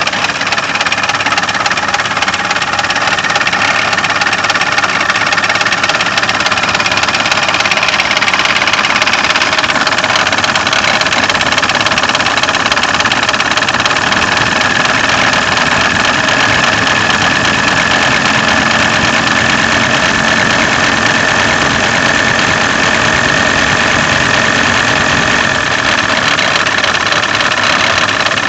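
VW LT28 van's diesel engine idling with a rapid, steady knock, which the owner traces to a failing crankshaft damper (harmonic balancer) pulley. A steady whine sits above the knocking throughout.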